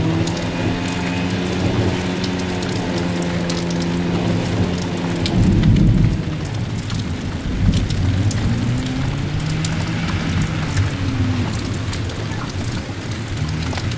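A Lada rally car's four-cylinder engine run hard across a grass field, its pitch holding steady, falling and rising again as it is revved, with a louder surge about six seconds in. A scatter of crackles and a rushing noise lie over the engine.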